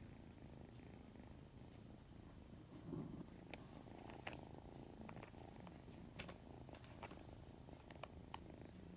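A kitten purring steadily and faintly. A few soft clicks come in over the second half.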